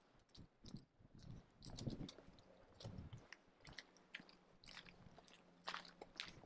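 Faint crunching footsteps on a gritty paved lane, with irregular small clicks and scuffs close to the microphone. A faint steady hum comes in during the second half.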